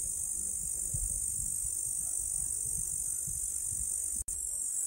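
Insects chirring in a steady high-pitched drone, with a low uneven rumble underneath. The sound breaks off for an instant about four seconds in.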